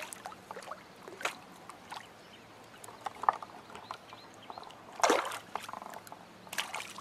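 A small hooked rainbow trout splashing at the water's surface while being reeled in: a handful of short, irregular splashes, the loudest about five seconds in.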